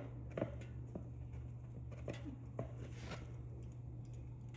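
A few light, separate clicks and taps of hand tools being handled and set on a fastener, over a steady low hum.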